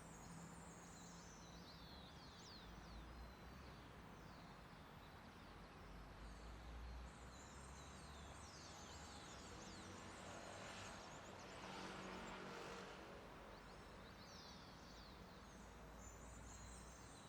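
Many birds singing, heard faintly: quick high chirps that sweep down in pitch, repeated throughout, over a low steady rumble of the city. A soft rush of noise swells briefly near the middle.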